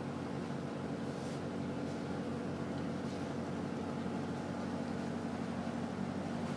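Steady mechanical hum of a boat's onboard machinery, several low tones held constant over a faint hiss, with a few faint brief rustles.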